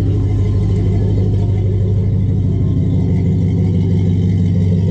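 Pickup truck engine idling steadily, a low even rumble.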